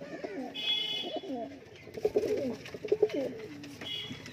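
Domestic pigeons cooing, several low coos overlapping and repeating. A short high-pitched chirp sounds about half a second in and again near the end.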